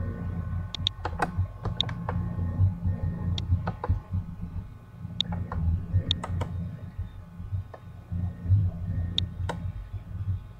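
Scattered sharp clicks of a computer mouse, some in quick pairs, over a steady low hum.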